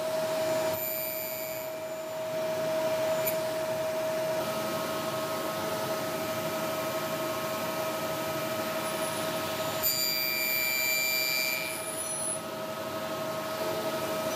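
Table saw running with a steady whine as its blade cuts a spline slot through the corner of a small wooden box held in a miter-gauge jig. The cut adds a higher, harsher sound for about two seconds, about two-thirds of the way in.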